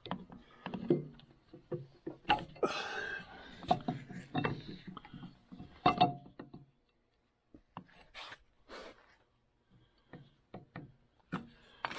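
Scattered metal clinks and knocks of a magneto flywheel being turned by hand and worked onto a Polaris triple snowmobile engine's crankshaft, feeling for the key to line up with its keyway.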